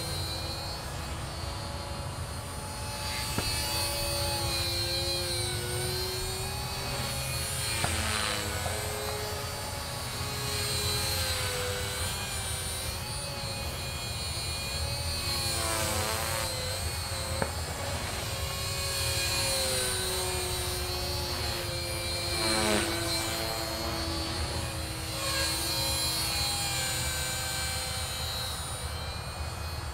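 Matrix 250R electric flybarless RC helicopter in flight, its motor and rotor whine rising and falling in pitch as it maneuvers. Several times the whine sweeps sharply up and down as the model passes by.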